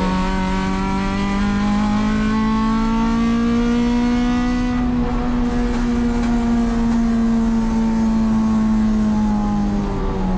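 Acura RSX-S race car's four-cylinder engine heard from inside the cabin, pulling in fourth gear with no fifth available because the gearbox won't engage it. The engine note rises steadily for about five seconds, holds high, and dips near the end.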